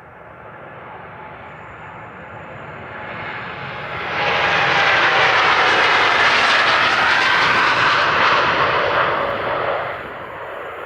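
A Boeing 787-9 airliner's GEnx jet engines at takeoff thrust as it passes close by. The roar builds, surges about four seconds in and holds loud with a steady whining tone, then falls away near the end.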